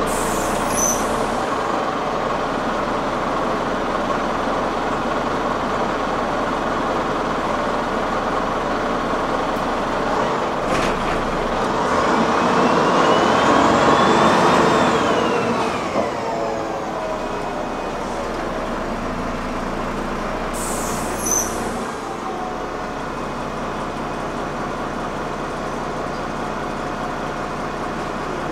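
Steady engine and road noise of a city bus, heard from inside while it drives. Around the middle it grows louder for a few seconds, and a whine rises and then falls in pitch.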